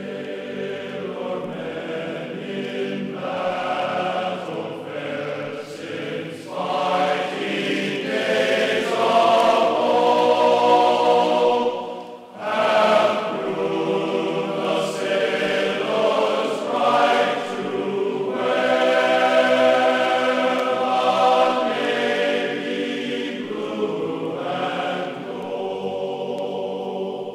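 Background music carried by long, sustained choir-like chords, with a brief dip about twelve seconds in.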